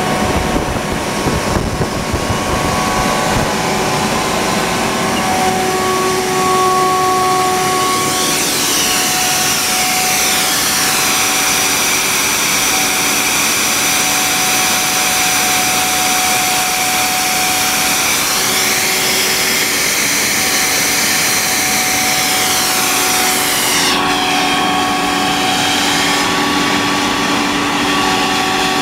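Belt-driven Ekomak rotary screw air compressor running under power: a loud, even machine drone with a few held tones over an airy hiss. In the middle of the stretch the hiss shifts and swirls in colour, then settles again near the end.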